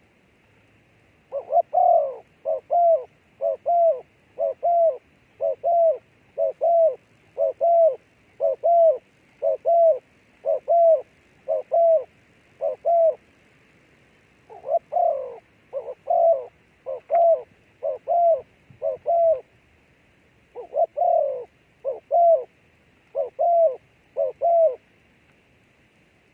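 A dove cooing: a run of short, low coos, about two a second, in three bouts with brief pauses between.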